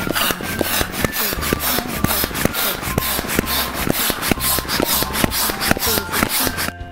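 Hand balloon pump being worked in quick, regular strokes, each one a rasping rush of air, inflating a clear latex confetti balloon. The strokes stop near the end.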